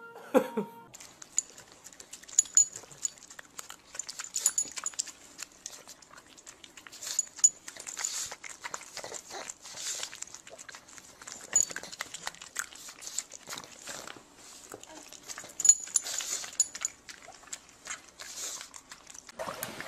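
A pug close to the microphone making many short, irregular noisy sounds, with scattered clicks.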